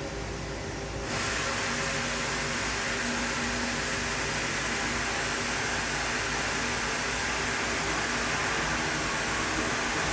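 GF Mikron HSM200U high-speed milling machine running. About a second in, the sound rises abruptly to a steady hiss, with faint steady tones beneath.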